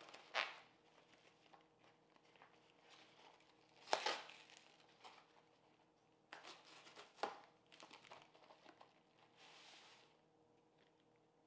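Cardboard shipping box being torn apart by hand, with crinkling brown packing paper: a series of rips and crinkles, the loudest about four seconds in, and a short hissing tear just before the end.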